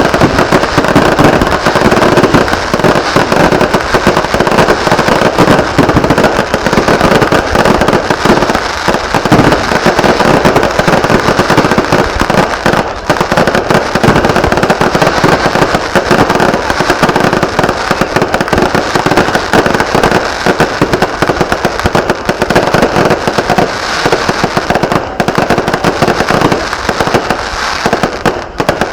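A dense, continuous barrage of fireworks and firecrackers going off, hundreds of overlapping sharp pops and bangs in rapid crackling succession, loud and without a break.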